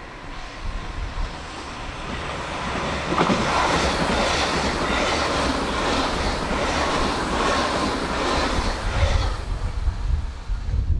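JR Shikoku 8000 series electric express train passing through at speed. The sound swells about three seconds in and carries a regular clatter about every two-thirds of a second before fading near the end.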